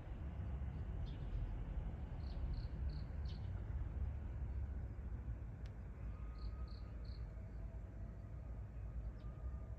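Outdoor ambience: a steady low rumble with short, high chirps in groups of three or four, about three a second, coming twice.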